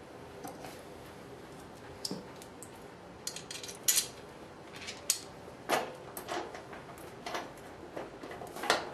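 Irregular metal clinks and knocks as a Rocketfish tilting TV wall-mount bracket is handled and hooked onto the mounting brackets on the back of a flat-screen TV.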